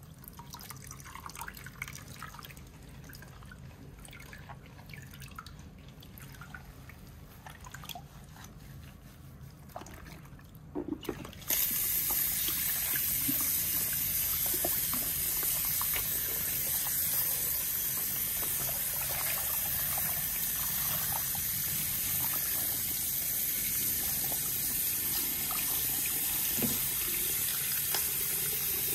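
Soft drips and small handling noises at a salon shampoo bowl, then about a third of the way in the bowl's hand shower is turned on and sprays water steadily into the basin.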